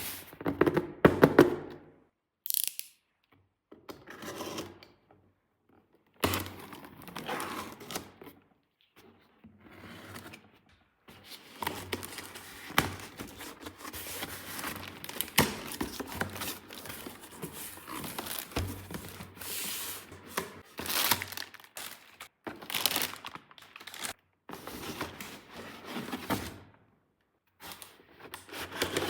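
Small plastic toy pieces and their packaging being unboxed and handled: irregular clicks, knocks and rustling, broken by short silent pauses.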